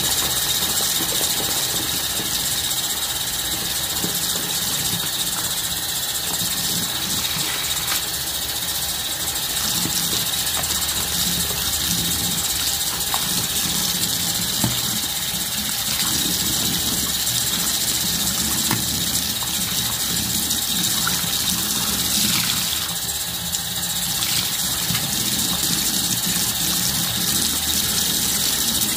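Faucet running steadily into a sink basin, water splashing onto the drain as soap suds are rinsed away.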